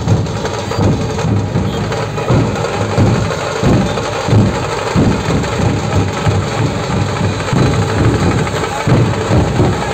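A troupe of large barrel drums (dhol) beaten together with sticks in a loud, fast, steady rhythm, heavy deep strikes repeating two to three times a second.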